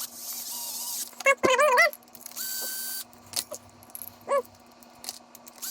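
Electrical connectors being handled and plugged together: rustling, short clicks and snaps, with one loud wavering squeak about a second and a half in.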